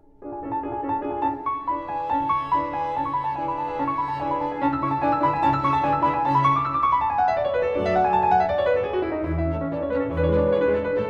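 Background piano music: a quick melody of separate notes, with a run that climbs and then falls in pitch about seven seconds in.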